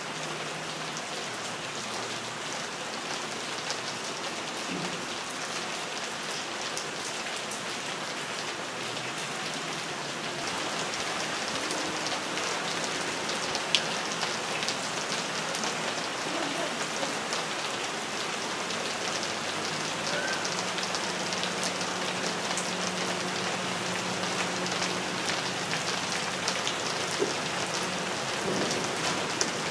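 Steady rain falling on tree foliage, with scattered single drops ticking through it; the rain grows a little heavier about a third of the way in.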